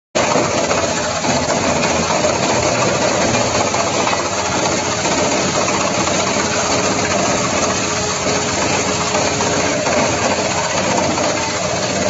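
YMPJ218 mobile wood chipper running under load as logs are fed into it from its infeed conveyor: a loud, steady, dense machine noise of the chipper chewing up wood.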